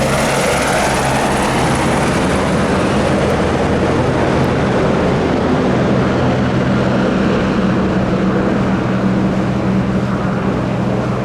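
Helicopter running close by: its rotor makes a steady low beat over the roar of the turbine engine. A faint high turbine whine fades away over the first half.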